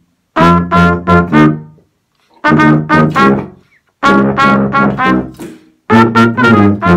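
Tuba and trumpet playing a duet together, the tuba's low notes under the trumpet, in short phrases of a few quick notes each with brief gaps between them.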